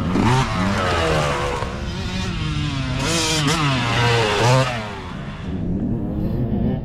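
Youth dirt bike engines revving as riders pass one after another, the pitch climbing and falling with each throttle change. The loudest pass comes about three to four and a half seconds in.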